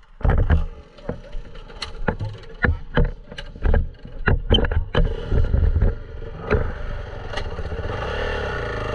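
Dirt bike being ridden over rough ground: about a dozen sharp knocks and clatters over the engine's rumble, settling into a steadier engine note in the last couple of seconds.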